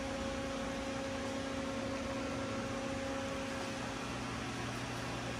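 Steady machine hum and hiss of the garage, with a faint held tone that stops about four seconds in as a lower hum sets in.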